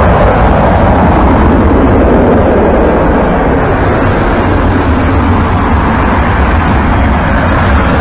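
Aircraft engine noise, a loud steady roar with a deep low rumble.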